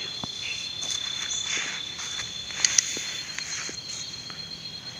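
Night insects, crickets by the sound, chirring in a steady, high, unbroken trill, with two sharp clicks a little past halfway.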